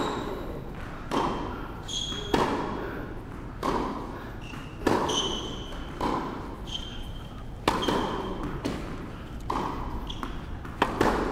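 Tennis ball being hit back and forth with rackets in a rally, a sharp racket strike or court bounce about every second and a quarter, each with a short ringing ping and some echo.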